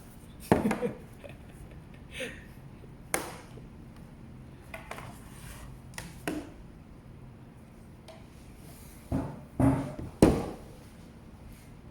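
Scattered knocks and clicks of a light, hollow RX-78-2 Gundam bust being handled and its parts opened and moved. The loudest are about half a second in and a cluster of three near the end.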